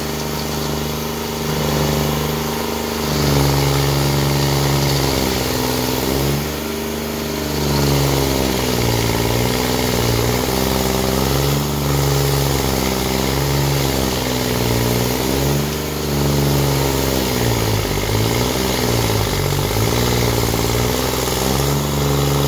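SP7015 stump grinder's engine running hard, its pitch sagging and recovering again and again as the cutter wheel bites into the stump under load. A steady noisy hiss of grinding runs under it.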